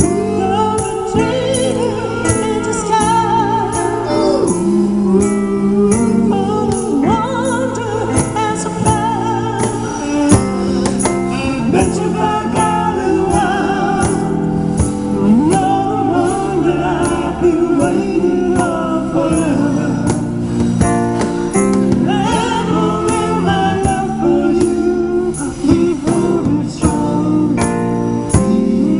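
Live amplified soul song: a woman singing into a microphone, backed by an acoustic guitar and a steady beat.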